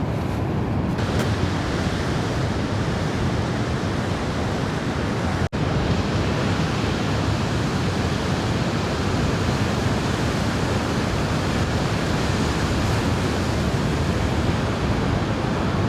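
Steady rushing noise of ocean surf breaking, with a momentary dropout about five and a half seconds in.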